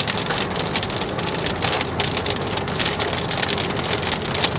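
Hail and heavy rain pelting a vehicle's roof and windshield, heard from inside the cabin as a dense, steady rattle of sharp taps. A couple of louder knocks stand out, one at the start and one near the end.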